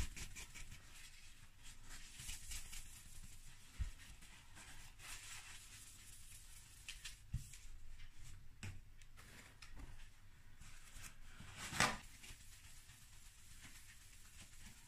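A cloth wiping and buffing the plastic of a Yamaha DTR 125 motorcycle airbox: faint, quick rubbing strokes with a few light handling knocks, and one louder scuff about twelve seconds in.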